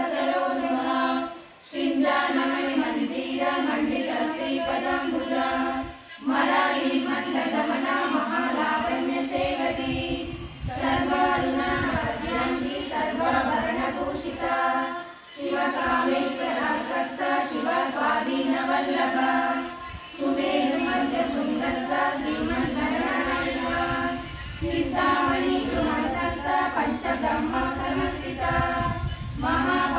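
A group of women chanting a hymn to the goddess Lalita in unison, in phrases about four to five seconds long with short breath pauses between them.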